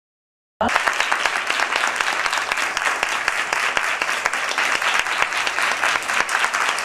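A roomful of people applauding, steady and loud, cutting in abruptly after about half a second of dead silence.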